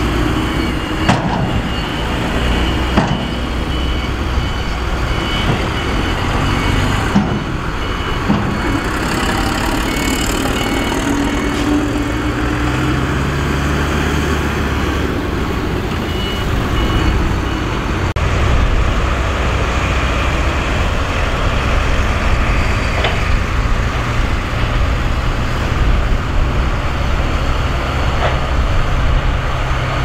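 Heavy 8x4 diesel dump truck engine running, a low steady rumble whose pitch rises for a few seconds near the middle as it is revved. A faint, evenly repeated high beeping sounds over it in the first part.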